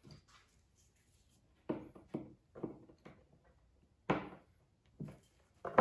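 A series of about seven knocks and clunks as a metal window sash frame is pried and worked apart by hand on a plywood workbench. It starts after a quiet second and a half, and the loudest knocks come about four seconds in and near the end.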